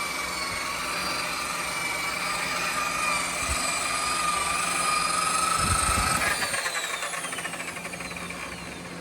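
Harbor Freight electric buffer running with a steady whine, its pad spinning on a plastic headlight lens. About six seconds in it is switched off, and the whine falls in pitch and fades as the motor winds down.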